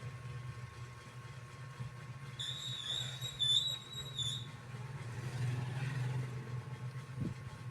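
An animal snoring in its sleep after a meal, a steady low rasping drone that swells near the end. A high thin whistling tone about two seconds long is the loudest sound, starting about two and a half seconds in.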